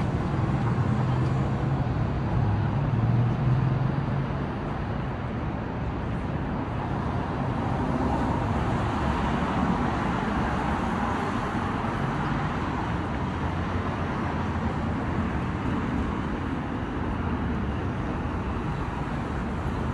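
City street traffic: cars passing with a steady wash of tyre and engine noise. A nearby vehicle's low engine hum stands out for the first few seconds, then fades into the general traffic.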